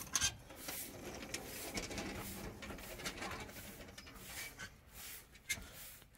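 Cylindrical stone roller dragged over a gravelly earth floor to compact it: a continuous, irregular crunching and grinding of grit with small clicks.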